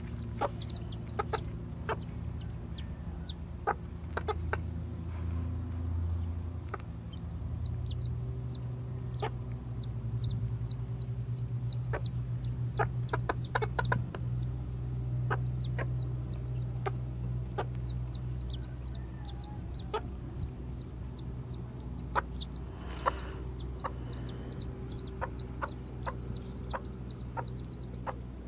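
Newly hatched chicks peeping continuously: many short, high chirps, each falling in pitch, several a second, over a steady low hum with occasional light clicks.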